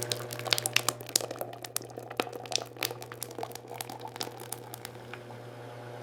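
Steady low machine hum with irregular crackling and sharp clicks scattered over it, thinning out toward the end.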